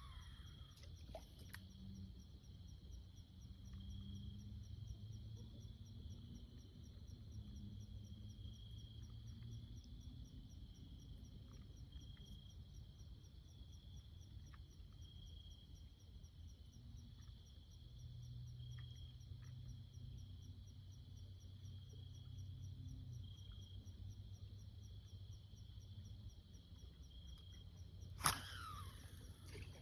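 A steady, faint chorus of insects trilling at a fast, even pulse, over a low rumble. One brief, sharp, louder sound comes near the end.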